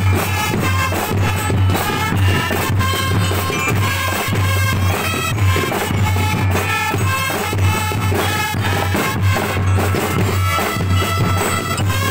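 Drum and bugle corps playing: snare and bass drums beat a fast, steady rhythm under a held melody.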